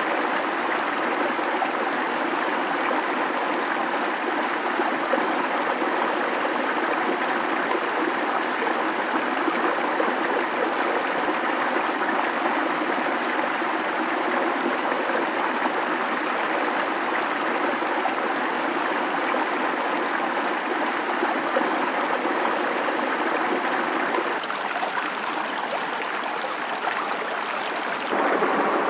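A shallow creek flowing over rocks: a steady, even rushing of water. It eases slightly a few seconds before the end, then comes up louder again just before the end.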